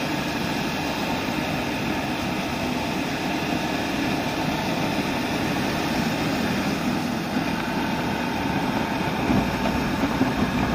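Motorcycle running steadily at highway speed: an even engine hum under a constant rush of wind and road noise.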